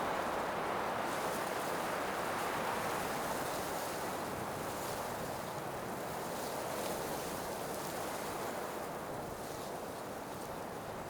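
Blizzard wind blowing as a steady rushing noise, slowly easing off.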